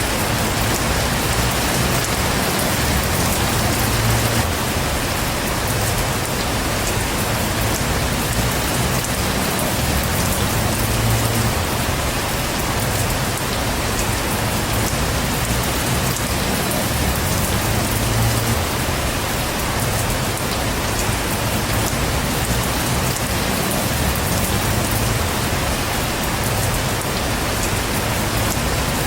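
Heavy rain falling steadily: a dense, even hiss of drops that does not let up.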